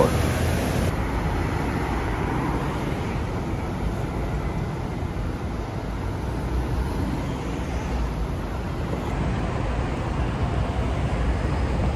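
Steady city road traffic: cars and a bus running past on a busy street.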